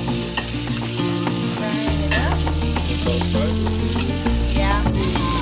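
Catfish frying in butter in a pan, sizzling and crackling steadily.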